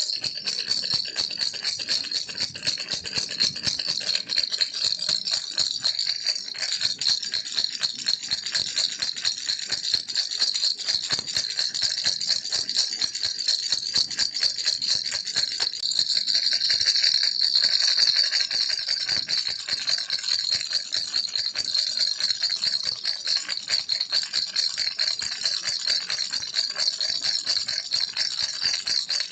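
Baby's toy rattle (kilukki) shaken without pause: a fast, dense, steady rattling, bright and high.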